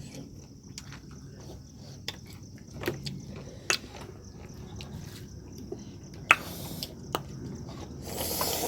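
Mouth sounds of eating peach and mango dressed with ground Akbari chillies: scattered wet clicks and smacks of biting and chewing, with a breathy hiss near the end.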